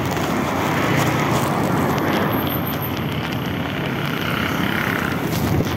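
Street traffic noise with a steady low rumble, a motorcycle approaching.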